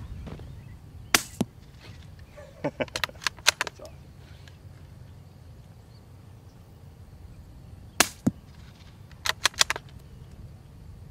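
Suppressed .22 long rifle with a Tactical Solutions Axiom suppressor firing CCI standard-velocity rounds: two sharp shots, about a second in and about eight seconds in, each followed a moment later by a weaker knock. Each shot is followed by a quick run of sharp clicks and snaps.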